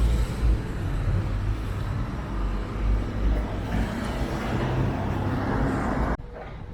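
Road traffic going by, a steady noise with a deep rumble, which cuts off abruptly about six seconds in.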